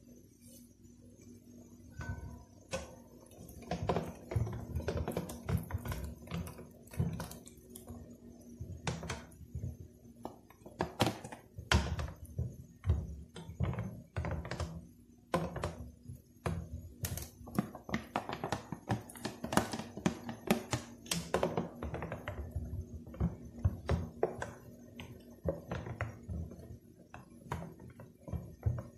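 Black plastic spoon stirring a thick dragon fruit and cornstarch mixture in a stainless steel bowl, with irregular knocks and scrapes of the spoon against the bowl, denser after the first couple of seconds.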